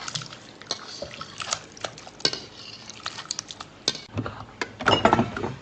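Steel ladle clinking and scraping against an iron wok as a brothy stew of meat, mushrooms and glass noodles is scooped and slid into a glass bowl. Irregular clicks are mixed with the wet slop of broth, which comes heaviest about four seconds in.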